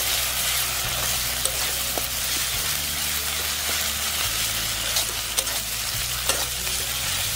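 Onions, green chillies and spice masala sizzling in a black wok, stirred and scraped with a metal spatula, with a few sharp clicks of the spatula against the pan.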